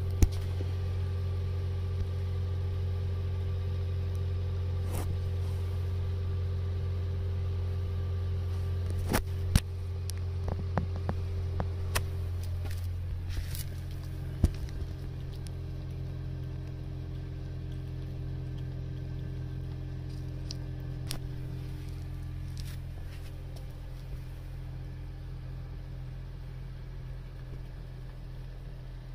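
Steady low hum of a running machine, easing slightly in pitch about 13 seconds in, with a scatter of sharp clicks between about 9 and 15 seconds in.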